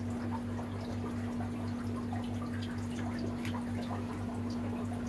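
Water trickling and dripping in aquarium tanks, with small scattered drips over a steady electric hum that pulses low underneath, typical of aquarium filters and air pumps running.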